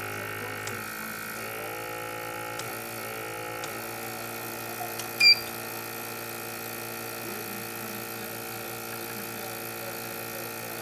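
Steady hum of a rework station heating a laptop GPU chip for reballing, with one short high electronic beep about five seconds in.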